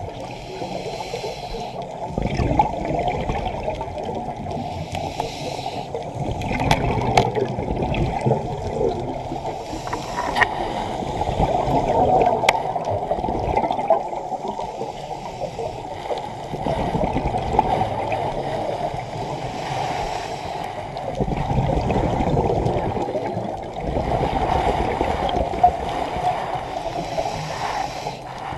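Muffled underwater rushing and gurgling of water, heard through an underwater camera, with scuba divers' exhaled bubbles hissing now and then and a few sharp clicks in the first half.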